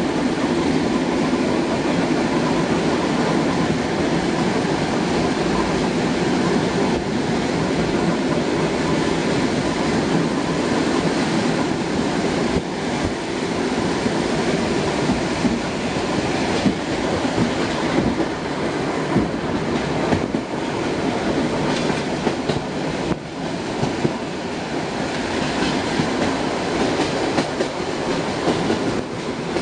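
An ER2R electric multiple unit running at speed, heard from inside the carriage: a steady rumble of the wheels on the rails, with scattered clicks over the rail joints.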